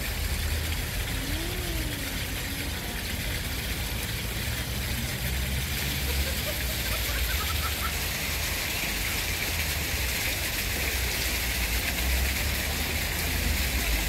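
Wind buffeting the microphone: a steady rushing noise with an uneven low rumble, and faint voices behind it.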